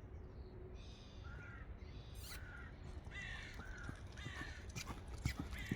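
Crow cawing, a series of about five short hoarse calls. Near the end a few sharp hoof knocks of a horse begin.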